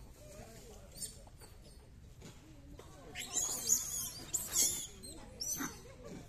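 High-pitched, squeaky animal calls with bending pitch, bunched in a burst from about three seconds in to about five seconds, with a few more near the end.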